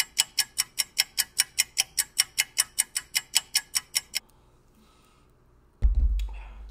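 Clock-ticking sound effect: a fast, even run of sharp ticks, about five a second, that stops after about four seconds. A sudden loud low thump and rumble comes near the end.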